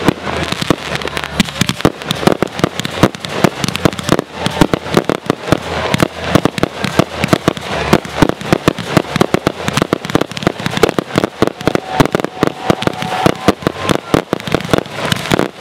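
A fireworks barrage: aerial shells bursting in rapid succession, a continuous run of sharp bangs and crackles, several every second, with no let-up.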